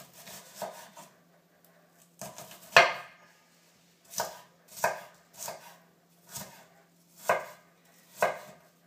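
Large kitchen knife chopping red onion on a wooden cutting board: a string of separate knocks as the blade goes through the onion onto the board, unevenly spaced at roughly one a second, the loudest a little under three seconds in.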